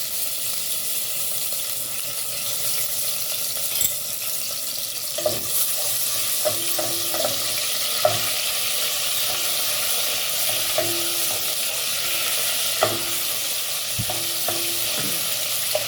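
Ginger-garlic paste sizzling in hot oil in a pan as it is fried and stirred, with a spoon clicking and knocking against the pan a few times.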